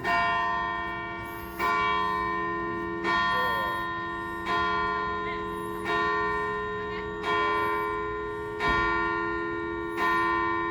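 One church bell tolling, struck eight times at an even pace of about one stroke every one and a half seconds. Each stroke rings on and fades into the next.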